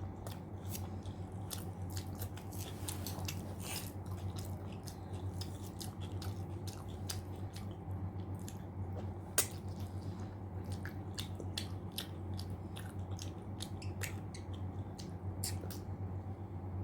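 Close-up chewing and wet mouth sounds from eating mutton curry and rice: irregular smacks and clicks, one sharper click about nine seconds in, over a steady low hum.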